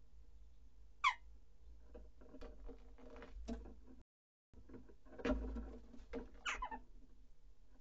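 Jackdaws giving short, sharp calls that drop in pitch, one about a second in and another about six and a half seconds in. Between them a jackdaw scrabbles on the nest litter inside a wooden nest box, with a louder flurry of scuffling and wingbeats a little past halfway as it flies up to the entrance hole.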